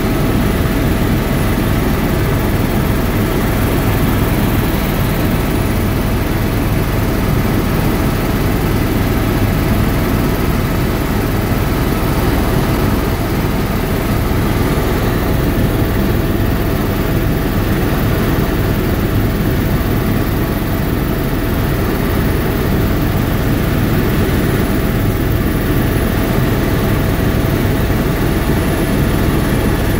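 Tour helicopter's engine and rotor running steadily in cruising flight, a constant heavy drone with a faint steady whine over it.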